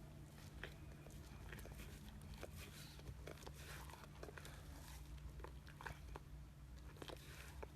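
Faint, irregular clicks and smacking mouth noises from a sleeping Labrador, over a steady low hum.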